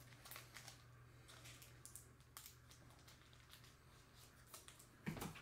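Near silence: faint scattered clicks and light rustles over a low steady hum.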